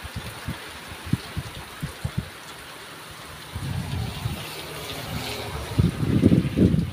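Heavy rain falling in a steady hiss, with low thumps and rumbling that swell loudest near the end.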